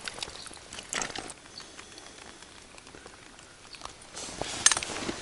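A small bream being landed and handled: knocks and rustles of the landing net and the fish over a faint patter of rain, with a sharp cluster of clicks about four and a half seconds in.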